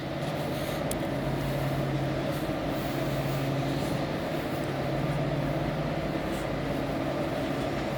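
Steady drone of engines and traffic, with a low, even hum throughout.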